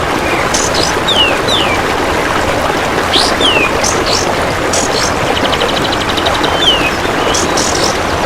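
Repeated short down-slurred whistles and quick high chips from a songbird, over a steady rush of running water. About five and a half seconds in there is a rapid, evenly pulsed trill like an insect's.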